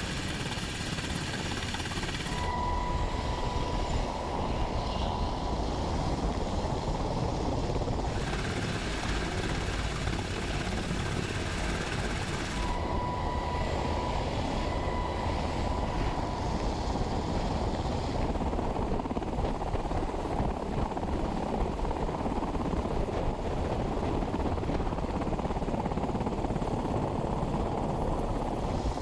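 MH-60S Sea Hawk helicopter hovering close overhead: steady, loud rotor and twin-turboshaft engine noise, with rotor downwash buffeting the microphone. A steady high whine comes through twice, for a few seconds each time.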